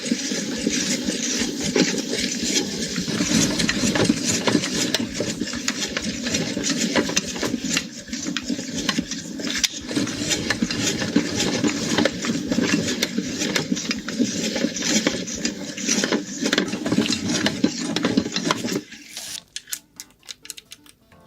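Meat grinder running as it grinds french fries: a steady motor hum under dense crackling and clicking. The grinder stops suddenly about 19 seconds in, leaving a few sparse ticks.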